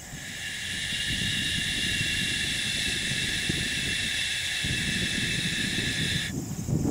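A steady high-pitched hiss that swells up over about a second, holds, then cuts off suddenly near the end, over a low wind rumble on the microphone.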